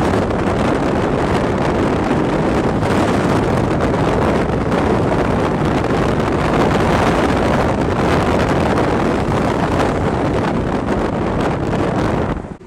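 Wind rushing over the microphone together with road noise from a car driving at speed, a loud steady rush with no clear engine note, cutting off suddenly near the end.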